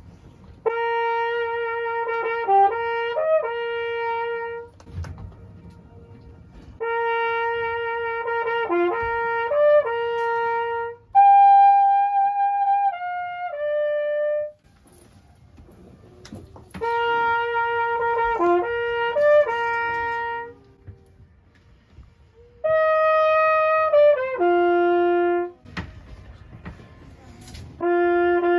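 A boatman's flugelhorn, a brass horn, playing short melodic phrases out over the lake for the Königssee echo. About six phrases of a few seconds each, with short pauses between them.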